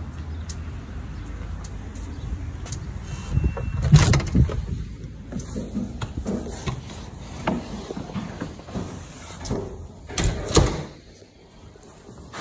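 Wind rumbling on the microphone, then a glass storm door being opened and let shut with a series of knocks and clatter, the loudest about four seconds in and again near ten and a half seconds, followed by quieter indoor sound.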